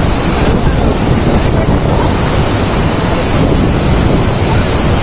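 Steady rush of a large waterfall and its rapids on the Kaveri river, heard close by, with wind buffeting the phone's microphone.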